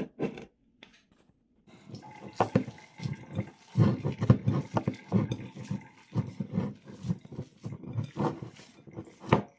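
Seasoned food being mixed by hand in a large ceramic bowl: irregular wet squelching and stirring strokes that start about a second and a half in, with a sharp knock against the bowl just before the end.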